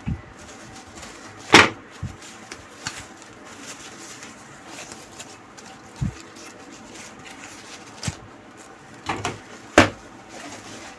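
Hard objects handled and set down on a workbench: a few separate sharp knocks and clicks, the loudest about a second and a half in and another near the end, over a low steady room background.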